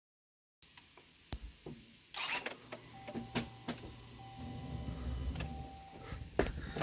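Crickets trilling in one steady high-pitched note, with scattered sharp clicks and knocks over it and a low rumble in the second half.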